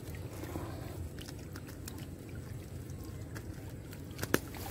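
Close handling noise with small scattered clicks as the hook of a soft frog lure is worked free from a caught snakehead's mouth, over a low rumble, with one sharp click near the end.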